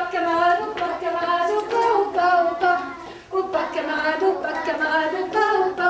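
A woman singing a melody solo, in a string of short held notes.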